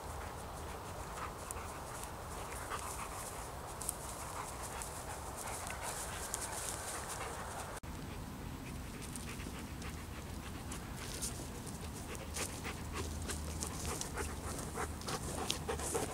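An Alaskan Malamute panting, with footsteps crunching through frosty grass, coming closer and louder over the second half.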